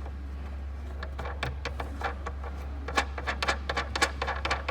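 Hand-tightening the plastic retaining nut of a Peugeot 207 tail light unit: a run of small plastic clicks and knocks, coming thicker and louder in the second half.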